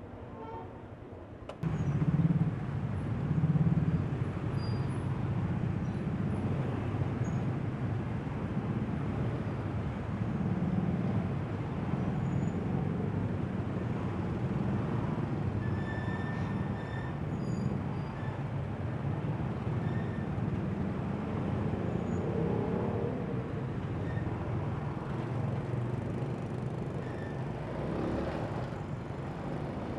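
Small motorbike and scooter engines running as a crowded queue of bikes moves off at low speed. The noise becomes suddenly louder about a second and a half in and then stays fairly steady.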